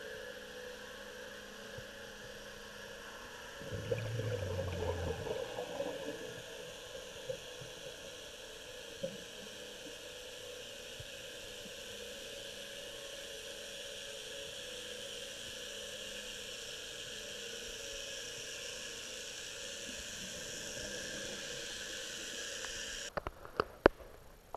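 Underwater ambience through a dive camera housing: a steady watery hiss, with a brief louder rush of noise about four seconds in and a few sharp clicks near the end.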